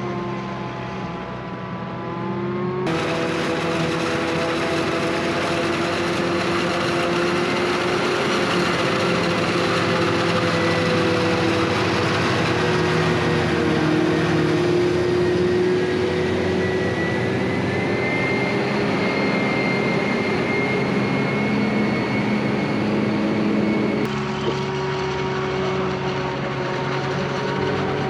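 Large diesel farm machinery, a self-propelled maize forage harvester and tractors, running steadily under working load with a continuous whine over the engine note. The sound shifts abruptly twice, about three seconds in and again near the end.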